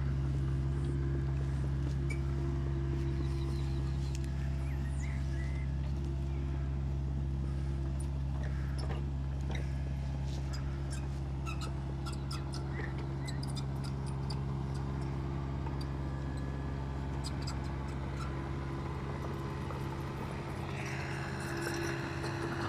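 Excavator's diesel engine running at a steady, unchanging pitch, with scattered faint clicks over it.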